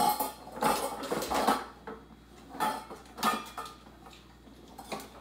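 A dog cage rattling and clattering as a toddler climbs onto it, in four short bursts over the first three and a half seconds.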